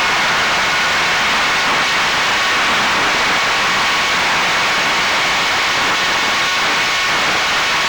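Steady rush of airflow and hiss through the onboard camera's microphone of a ZOHD Drift foam RC plane in flight, with a faint steady whine of its electric motor running.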